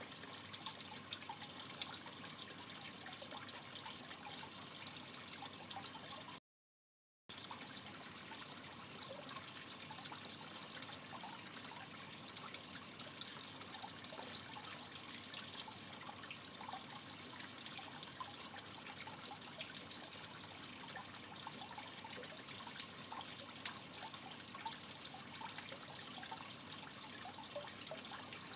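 Aquarium water trickling steadily, with faint small clicks scattered through it; the sound cuts out completely for under a second about six and a half seconds in.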